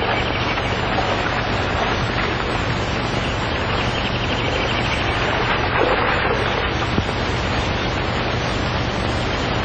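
Steady rush of river water, with the hiss and low hum of an old film soundtrack underneath.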